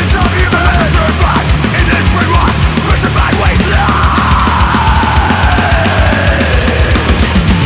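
Loud heavy metal music: a band playing with dense, fast drumming and a heavy low end. About halfway through, a long pitched glide falls steadily until near the end.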